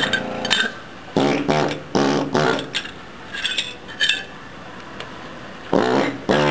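Gison GPW-4500 pneumatic air hammer chipping ceramic tile, run in four short bursts of about half a second each, with a few sharp clinks of loose tile pieces in the gaps between bursts.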